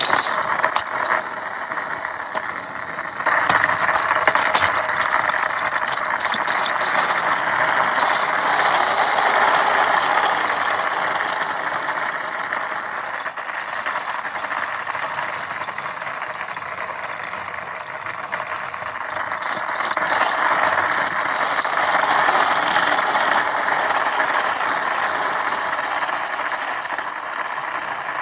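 Electric mini dirt bike with a skateboard fixed to its front end being ridden on pavement: the skateboard mount rattles over a steady road-and-wind rush that grows louder about three seconds in and again around twenty seconds, as the bike speeds up.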